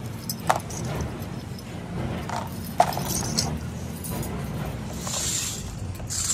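Sharp clicks and light metallic clinks as oil filter parts, a pleated paper element and its metal end caps, are handled by hand. The two loudest clicks come about half a second and three seconds in, over a steady low hum, with a rustling hiss near the end.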